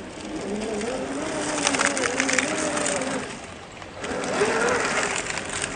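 The electric motor and drivetrain of a 1/10 scale RC crawler whine under throttle, the pitch rising and falling as the car drives, with a pause just past the middle. Sharp clicks and crunches from the tyres on rocks and gravel come in the first stretch.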